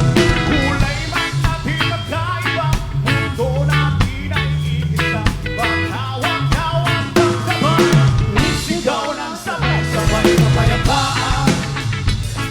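Live reggae band playing an instrumental passage: a steady bass line and drum kit under a gliding melodic lead.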